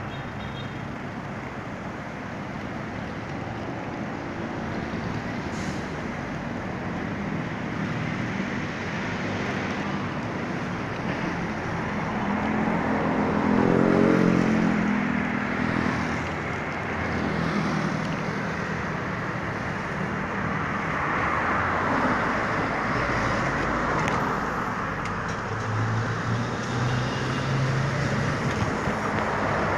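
Road traffic on a busy city road: engines and tyres of passing cars and trucks. One vehicle's engine grows loud as it passes close about halfway through, then fades.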